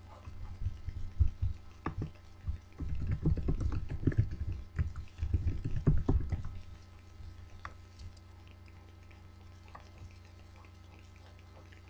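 Irregular low thumps and rustling knocks close to a webcam microphone, like body movement or handling bumping the mic or desk, for about six seconds. After that only a steady electrical hum remains.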